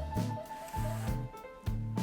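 Background music: a jazzy instrumental with piano, bass and drums keeping a steady beat.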